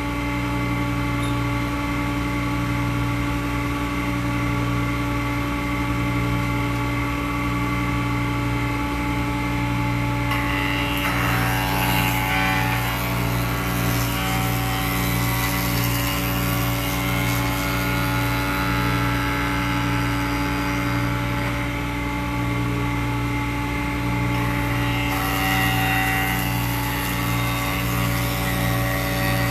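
Woodworking jointer running with a steady motor hum. From about ten seconds in, a wooden table leg is fed across the cutterhead, adding a continuous hissing cutting noise as a taper pass is taken.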